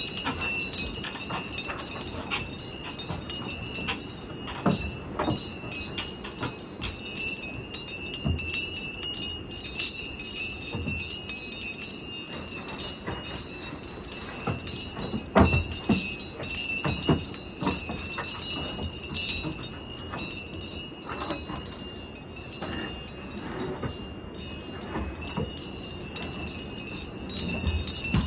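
Metal wind chimes ringing continuously, struck over and over so that several high tones hang on together, with a faint low rumble of wind underneath.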